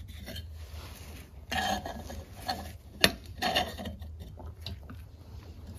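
Metal scraper prying and scraping between a stuck head gasket and an engine's cylinder head: a few short scrapes, with a sharp click about three seconds in.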